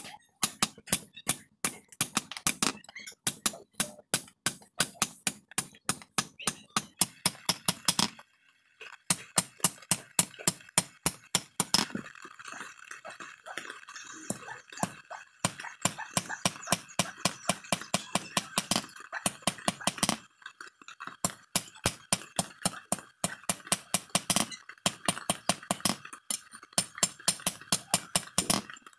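Blacksmith's hand hammer striking red-hot iron on a steel anvil block in quick metal-on-metal blows, several a second. The blows stop briefly twice, and in the middle stretch they come fewer and lighter.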